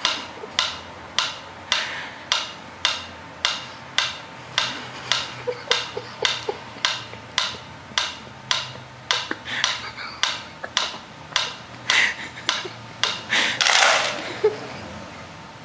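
Sharp taps or knocks repeating at an even pace, a little under two a second, then a louder rustling burst near the end.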